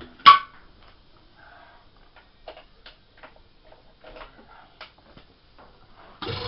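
Scattered light clicks and knocks, with one sharp, loud click just after the start. Near the end an air compressor switches on and starts running with a steady hum, to refill its tank after running out of air.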